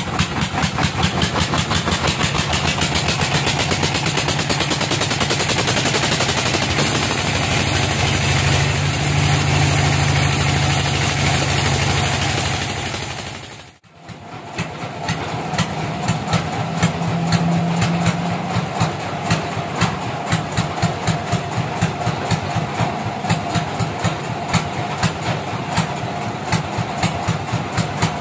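Band sawmill machinery running with a steady, fast, regular knocking beat. The sound drops out for a moment about halfway through and then picks up again.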